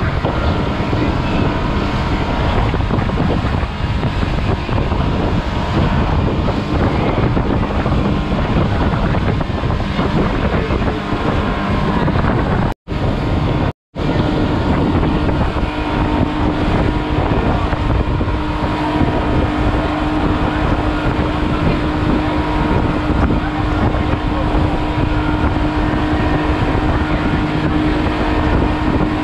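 Open water taxi boat running at speed: its motor drones steadily under the rush of spray off the hull and heavy wind on the microphone. The sound cuts out completely twice, very briefly, a little before halfway.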